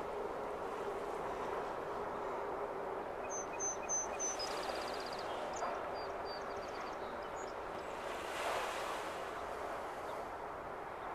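Steady outdoor wash of wind and water with a low hum under it, and a small bird giving a string of short, high chirps, including one quick trill, from about three to seven seconds in. A gust or wave swells briefly near the end.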